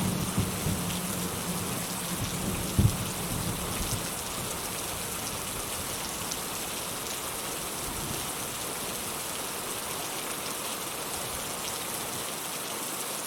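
Steady heavy rain falling. A low rumble of thunder dies away over the first few seconds, with a brief loud thump about three seconds in.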